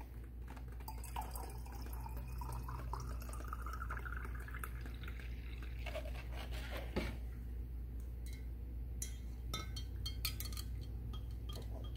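Water poured from a plastic measuring cup into a glass jar, its pitch rising as the jar fills. In the last few seconds a stir stick taps and clicks against the glass.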